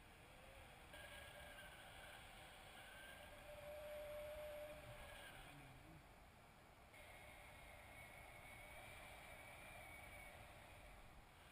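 Faint rush of airflow over the camera of a paraglider in flight, with thin whistling tones that waver slightly in pitch.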